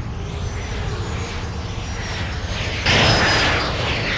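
Cartoon sci-fi sound effect of spacecraft and powered-armour thrusters: a steady jet-like rush that jumps suddenly louder about three seconds in.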